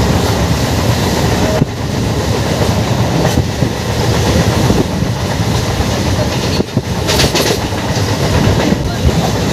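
Passenger train running at speed, heard from inside the carriage at the window: a steady rumble and rattle of wheels on the track, with a quick run of clacks about seven seconds in.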